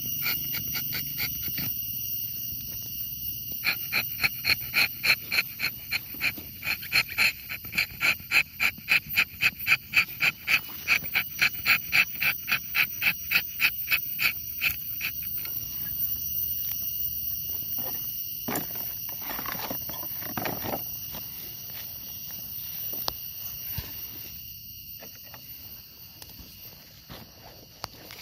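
Rhythmic pulsing animal call, several pulses a second, that swells and then stops about halfway through. A steady high insect drone runs beneath it.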